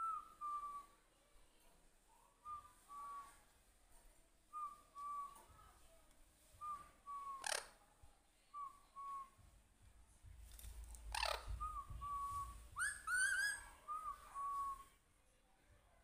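Alexandrine parakeet calling: short two-note whistles repeated about every two seconds, broken by two sharp shrieks about halfway through and again a few seconds later, then a quick burst of rising squawks.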